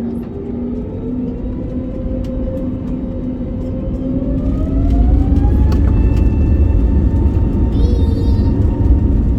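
CFM LEAP-1A turbofan engines of an Airbus A321neo spooling up to takeoff thrust, heard from inside the cabin. The engine whine rises in pitch and settles to a steady tone about six seconds in, while a low rumble grows louder.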